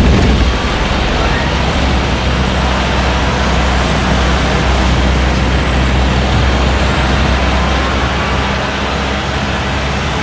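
Volvo truck's diesel engine running steadily under way, with a constant low drone and road noise.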